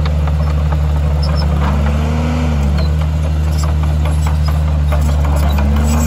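Heavy diesel engine of earthmoving machinery running steadily, its pitch rising and falling about two seconds in and climbing again near the end as it takes on load. Faint scattered clicks run through it.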